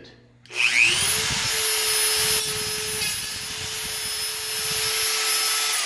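Dremel rotary tool with a cutoff wheel spinning up with a rising whine about half a second in, then running steadily at high speed as it grinds a clearance notch into the metal upper bifold door track. The whine starts to wind down at the very end.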